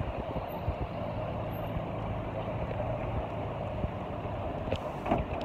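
Street traffic: a steady hum and rumble of cars running and passing close by, with a few short knocks near the end.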